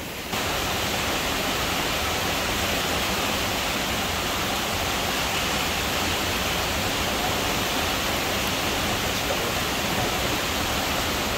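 Swollen river rushing over rocks: a steady, loud rush of water running heavy.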